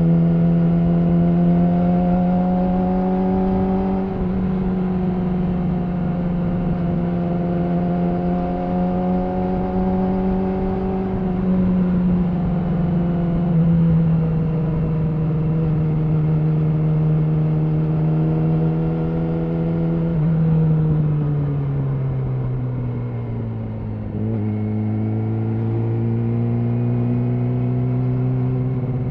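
Yamaha R6's inline-four engine heard through an Akrapovic slip-on exhaust, running steadily at part throttle while riding, with small rises and falls in pitch. About two-thirds of the way through, the note drops as the bike slows, then holds steady at the lower pitch.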